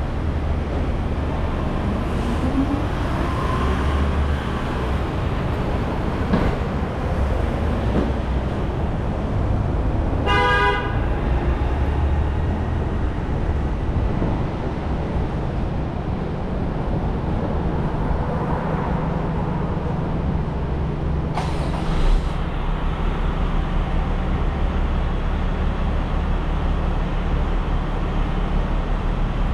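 Steady road and engine noise from a car driving through city traffic. About ten seconds in, a vehicle horn sounds once, a short toot of about half a second, and around twenty-two seconds in there is a brief knock.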